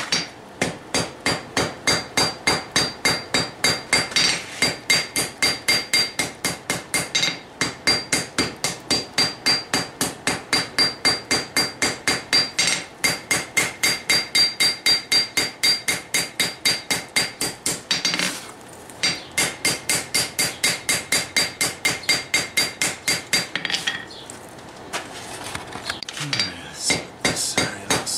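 Hand hammer forging hot steel on an anvil, squaring up a knife blank made from a sickle bar mower guide. It goes in quick steady blows, about four a second, with the anvil ringing. There is a brief break about two thirds through and a longer pause near the end before the blows resume.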